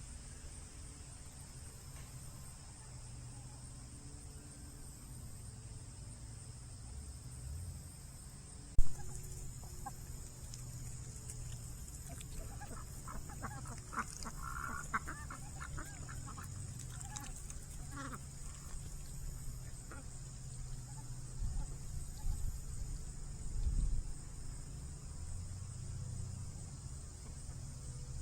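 Fowl clucking: a run of short, quick calls in the middle of the clip over a steady high insect chorus. A single sharp knock sounds shortly before the calls and is the loudest thing heard.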